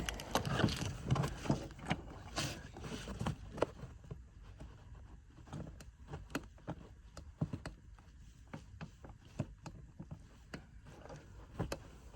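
Irregular small clicks, taps and scrapes of a pry tool and hands working a plastic seat-belt clip loose. The clicks come most thickly in the first few seconds, then thin out to scattered ticks.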